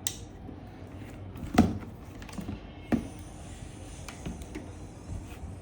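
Fan parts being handled and set down: a few scattered knocks and clicks, the loudest about a second and a half in and another about a second later.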